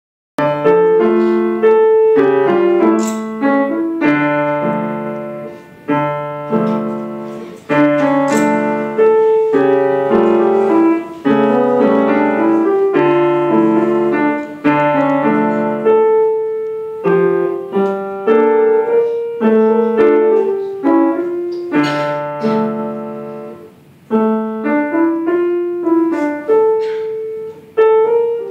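Yamaha upright piano played solo: melody notes over repeating chords, in phrases whose notes ring and fade, with brief pauses between some phrases.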